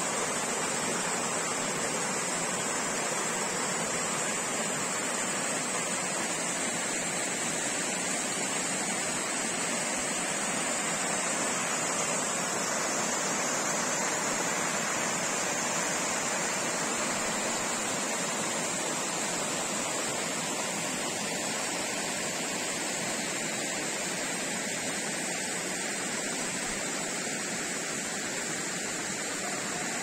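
Fast-flowing stream water rushing steadily over rocks, an even unbroken rush.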